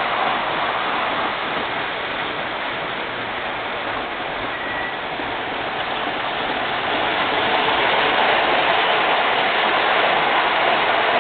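MTH O-gauge R40 model subway train running on its track: a steady rushing rumble of wheels and motors that grows louder as the train draws near, then passes close by near the end.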